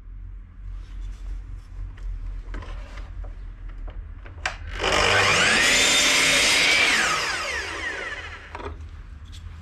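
Power tool working wood. Its motor whine rises as it spins up about five seconds in, holds for around two seconds, then falls away as it stops. Before that there is light scraping and handling of wood pieces with a sharp click.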